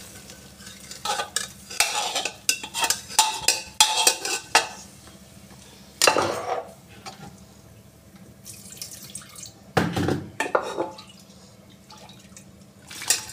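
Boiled dried peas and their water poured from a metal pressure-cooker pot into an aluminium kadhai of masala gravy, with a run of metal clinks, scrapes and splashing in the first few seconds. Two louder knocks of metal on metal come about six and ten seconds in, over a faint steady hum.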